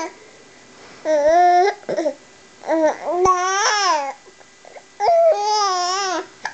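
Baby cooing and squealing in four drawn-out, high-pitched vocalizations that rise and fall, with a sharp hiccup catching in three of them, about two seconds apart.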